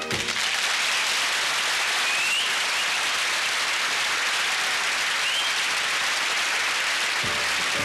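Audience applauding at the end of a comic song, a steady clapping that holds its level. Music starts up underneath near the end.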